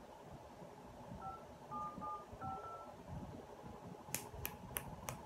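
Smartphone keypad touch tones: four short dial beeps, the last a little longer, as a number is dialled. About a second later come four sharp clicks in quick succession.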